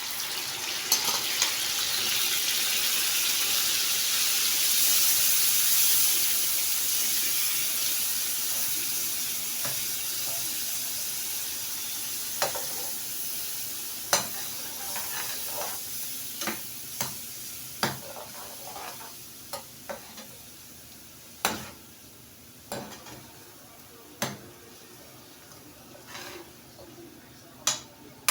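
Blended pepper and onion sizzling in hot frying oil in a pot. The sizzle swells over the first few seconds, then slowly dies down, while a spoon knocks and scrapes against the pot as it is stirred, more often in the second half.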